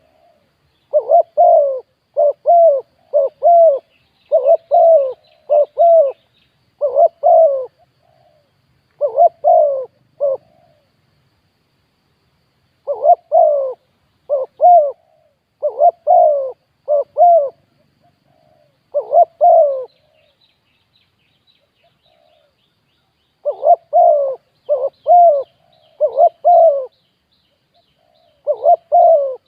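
Spotted dove cooing in runs of several short, pitched notes, with pauses of a few seconds between runs. Small birds twitter faintly in the background.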